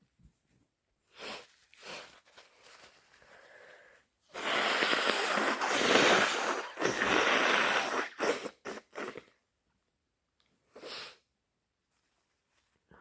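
A person sniffing a couple of times, then blowing their nose hard for about four seconds, followed by several quick, thick sniffles.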